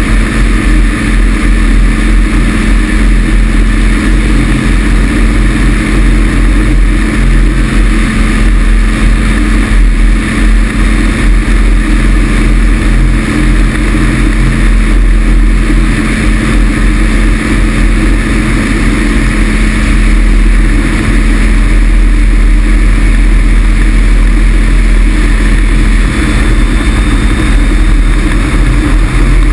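Rotax 447 two-cylinder two-stroke engine of a Pegasus XL microlight trike running at a steady cruise, under a heavy rumble of wind buffeting the wing-mounted camera in flight.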